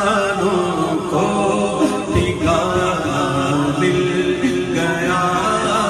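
A man singing a naat, an Urdu devotional poem, through a microphone and PA system in a slow, melismatic chant, with a steady low note held underneath.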